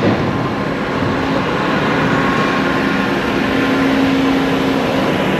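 Large car ferry's machinery and ventilation running at berth: a loud, steady rushing noise with a constant low hum.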